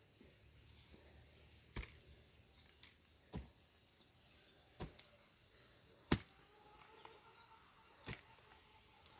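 Five sharp strikes, evenly spaced about a second and a half apart, like a hand tool chopping or digging; the loudest comes about six seconds in. Faint bird chirps in the background.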